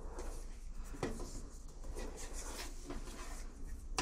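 Hands handling Teflon tape over a washing machine's sheet-metal panel: light rubbing and scratching, with a small tap about a second in and another near the end.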